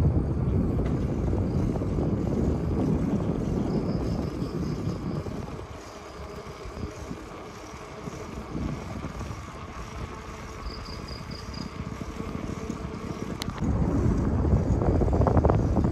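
Wind buffeting the microphone of a camera riding on a moving bicycle: a low, gusty rush that eases about six seconds in and jumps back up near the end. Faint high chirps sound twice in the background.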